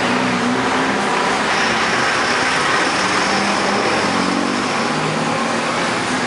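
Street traffic: cars driving past with engines running and tyre noise, steady and fairly loud, with a thin high tone through the middle.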